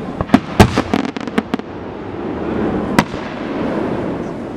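Fireworks going off: a quick run of sharp cracks and pops in the first second and a half, then one louder bang about three seconds in, over a steady background rumble.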